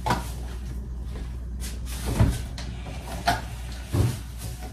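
A refrigerator door being opened and food containers handled: a few separate knocks and clunks, the loudest about two seconds in and near the end, over a low steady hum.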